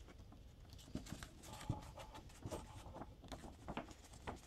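Paper rustling and crinkling as a large folded poster sheet is lifted and opened out by hand: an irregular run of small rustles and light taps, the sharpest a little under two seconds in.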